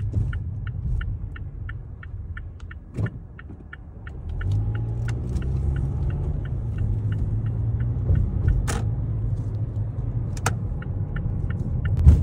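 Car being driven, heard from inside the cabin: steady engine and road rumble that grows louder about four seconds in as the car gets going, with the turn-signal indicator ticking about three times a second and a few louder knocks.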